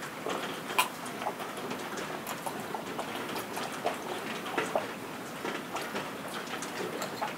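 A long drink of makgeolli from a bowl: repeated gulping swallows. Rain falls throughout, with scattered irregular drips and ticks.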